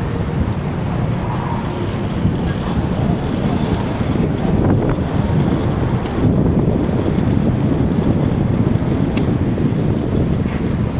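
Steady wind noise buffeting the microphone of a moving ride, a dense low rumble, with street traffic underneath.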